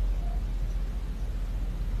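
Steady low background rumble with no cat call, and a faint brief tone about a quarter second in.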